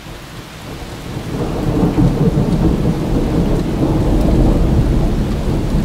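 Thunder rumbling, swelling about a second in and rolling on loudly, over the steady hiss of rain.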